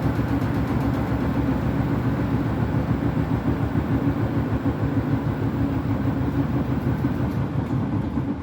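Beko WTK104121W washing machine spinning with a badly unbalanced load and a sudslock, the drum pulsing in a fast, even rhythm as it turns. The noise falls away sharply near the end as the spin stops.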